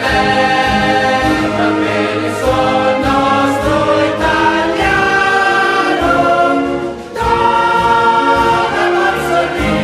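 A choir singing a slow song with held notes, with a brief pause between phrases about seven seconds in.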